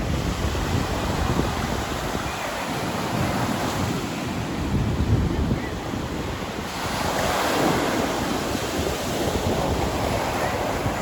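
Heavy surf breaking and washing up a sandy beach, with wind buffeting the microphone. A larger wave surges in about two-thirds of the way through, its hiss brighter and louder for a few seconds.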